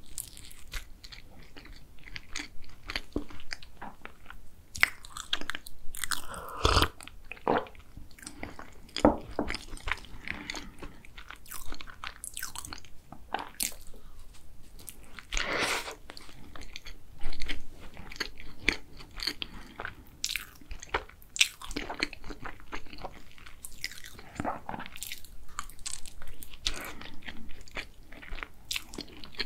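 A person biting and chewing an egg tart close to the microphone: irregular crackles and clicks from the pastry, with a few louder bites.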